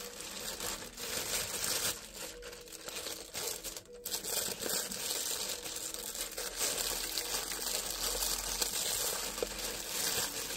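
Plastic mailing bag crinkling and rustling as hands handle it and work at its opening to pull out a plastic-wrapped kit, in a continuous series of small crackles.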